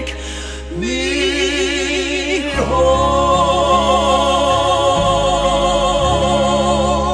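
Background music: a sung ballad, the voice rising into a phrase and then holding one long note with vibrato over sustained chords.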